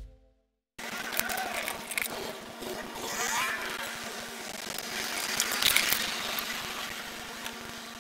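Background music cuts off into a moment of dead silence, then raw room sound comes in: a steady hiss with a low electrical hum and scattered small rustles and clicks.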